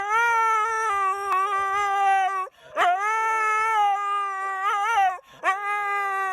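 A dog howling: three long, drawn-out howls at a steady pitch, each wavering briefly near its end.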